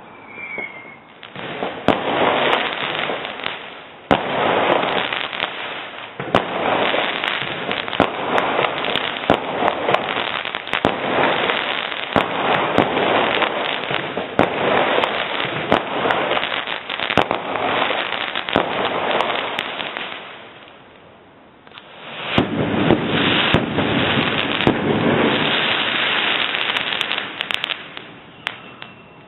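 Fireworks going off in a dense run of rapid sharp cracks and bangs. They die down briefly about 21 seconds in, then start up again just as thickly.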